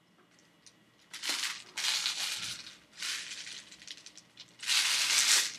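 Steel Daisy BBs rattling in their container as it is handled and shaken, in four bursts, the last the loudest.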